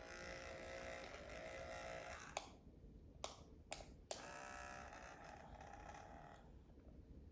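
Several sharp clicks of nail clippers cutting toenails, about four in a couple of seconds. Before and after them a child makes drawn-out humming or whining sounds.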